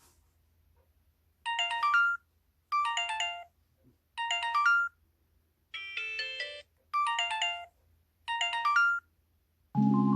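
Samsung SHC-Z120L flip phone's ringtone playing through its small speaker: a short electronic chiming melody, heard six times about a second and a half apart, the fourth phrase different and softer. Near the end a sustained mallet-like tune starts.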